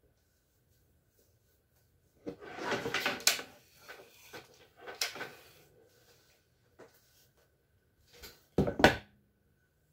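Handling sounds of a hair straightener: a rustling, sliding stretch as hair is drawn through the flat iron about two seconds in, then scattered clacks, the loudest a sharp double knock near the end.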